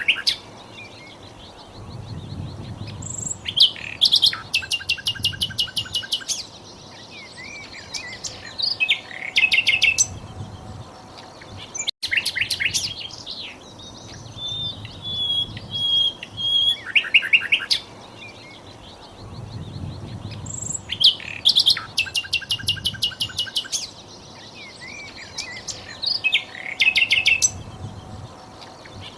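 Sikatan londo flycatcher song from a looped recording: bursts of rapid, high trilled notes and thin whistles with short pauses between phrases, the same sequence coming round again about every 17 seconds.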